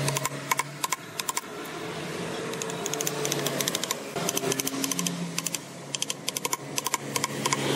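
Rapid bursts of light clicking or tapping, several runs in a row, over a low steady hum.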